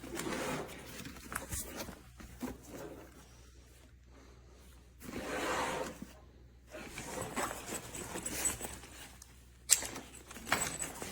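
A fabric tactical backpack being handled: irregular rustling and scraping of the cloth in bouts, with a few sharp clicks, the loudest near the end.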